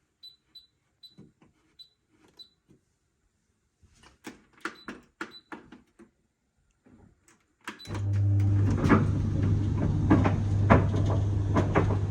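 A few light clicks and knocks, then about eight seconds in an electric appliance switches on and runs with a steady low buzz.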